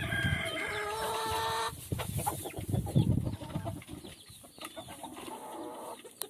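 Roosters and hens in a hay-bedded coop: a long rooster crow held for nearly two seconds at the start, then scattered clucking over rustling and scratching in the hay.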